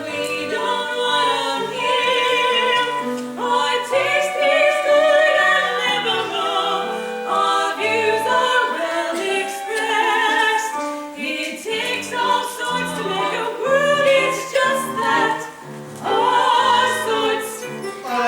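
Stage-musical song: singers with vibrato in their voices over instrumental accompaniment, continuing without a break.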